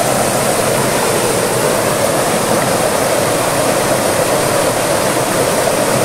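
Water rushing steadily over a small waterfall and the shallow rapids of a creek.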